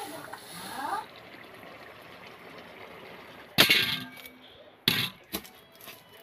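Red onions dropping into a stainless-steel colander, one loud clang with a brief metallic ring about three and a half seconds in. Two shorter sharp knocks follow, a knife cutting an onion on a stone counter.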